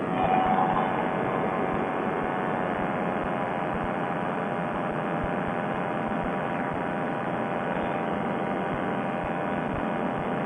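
Paramotor trike's Fresh Breeze Monster two-stroke engine running steadily in flight, a constant drone mixed with wind rush, heard muffled as through a helmet headset microphone. The engine note swells briefly just after the start, then holds level.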